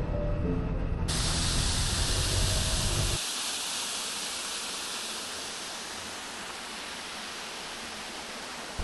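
Background music with a low rumble under it that cuts off about three seconds in, leaving a steady, even hiss. The hiss comes in suddenly about a second in and carries on alone.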